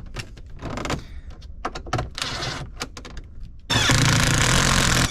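Cordless drill driving a screw into the dash's metal frame, running hard for about a second and a half near the end with a steady motor hum. Before it come scattered clicks and knocks of the screw and panel being handled.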